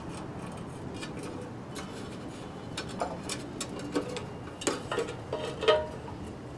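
Light clicks and taps from a metal kerosene lantern and its wire being handled. In the second half come several sharper metallic clinks that ring briefly as the lantern is tipped onto its side.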